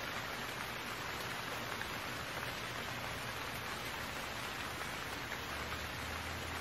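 Steady rain falling, an even hiss with no single drops standing out.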